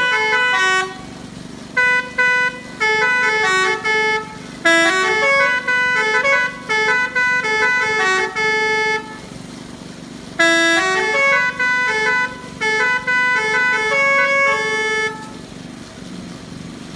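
A tour bus's telolet basuri musical horn playing a fast tune of short stepped notes, in several phrases with brief pauses, stopping about fifteen seconds in. A low steady hum runs underneath.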